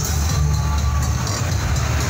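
Loud electronic dance music with heavy bass, blasting from a truck-mounted parade sound system.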